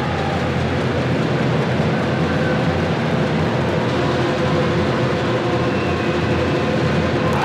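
Crowd noise echoing in an indoor futsal hall: a steady din of spectators with a low hum underneath, slowly building as a penalty is lined up.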